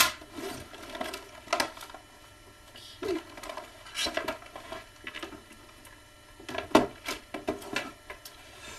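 Handling noises from opening an action figure's packaging: irregular clicks, taps and rustles, with a sharp click at the start and another loud one about two thirds of the way through.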